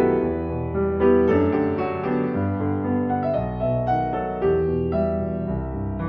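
Background music of piano notes in a slow melody with held chords.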